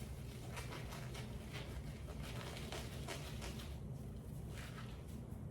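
Rustling and crinkling as a disposable glove is pulled on and worked over the sleeve cuff of an isolation gown, in short irregular bursts that stop about five seconds in, over a steady low hum.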